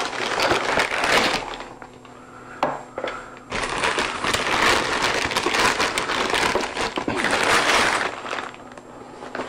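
Plastic mailer bag crinkling and rustling as it is torn open and boxes are pulled out of it. A quieter stretch of about two seconds in the middle holds a couple of light taps before the rustling resumes.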